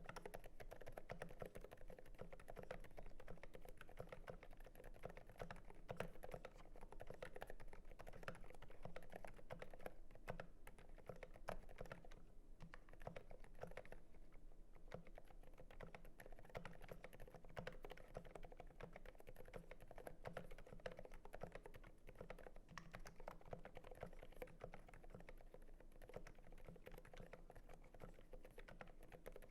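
Continuous quiet typing on a GMMK Pro mechanical keyboard with lubed Zilents silent linear switches (Zealios housings, Cherry Silent Red stems) on an FR4 plate: a fast, steady stream of soft, damped keystrokes.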